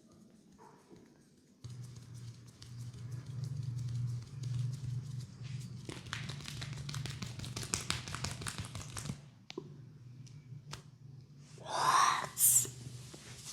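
Hands rubbing and massaging a head and hair, giving a crackly rustling friction sound that grows dense through the middle. There is a steady low hum underneath and one louder, brief swishing sound near the end.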